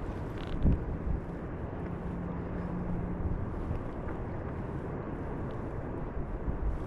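Wind rumbling on the microphone over waves washing around a sea kayak on open water, with a couple of low thumps about a second in and a faint steady low hum for a while partway through.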